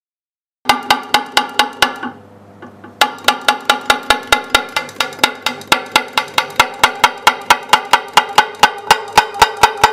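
Spring-loaded glass tapper (cut opener) striking a thick glass sheet under the circular score line, opening the cut bit by bit. It makes rapid ringing metallic taps, about five a second. The tapping stops about two seconds in and starts again a second later.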